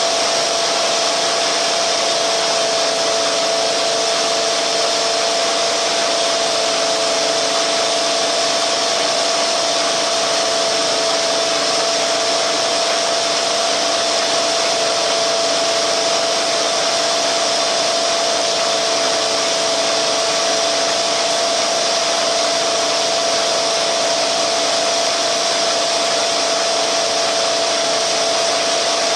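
Milling machine cutting an aluminum block: a steady whine with a constant tone over a hiss, unchanging throughout.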